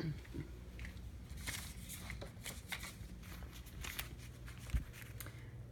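Hands rummaging through a cardboard box of supplies: scattered rustling, crinkling and light knocks of packages being moved, with a dull thump near the end over a low steady hum.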